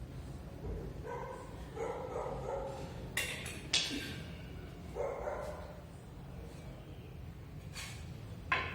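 A dog giving a few short calls, with several sharp clicks in between over a steady low hum.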